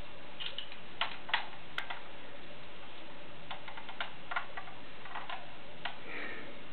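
A dozen or so light clicks and taps at irregular intervals, some in quick pairs.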